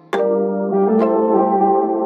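Instrumental background music: slow sustained notes, with a fresh note or chord struck twice, about a second apart.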